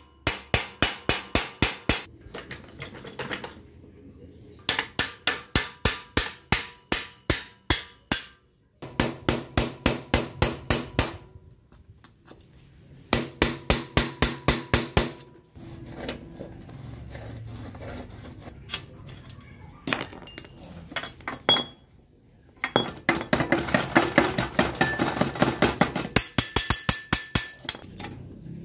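Rapid metal-on-metal hammer taps, several a second, in bursts of a few seconds separated by pauses: a hammer driving a punch and a screwdriver against the rusted crank and bottom-bracket lock ring of an old steel bicycle. The last burst, near the end, is denser and rings more.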